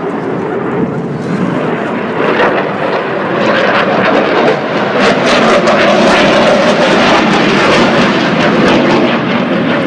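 Aircraft engine noise from a plane flying past, building up and loudest in the second half.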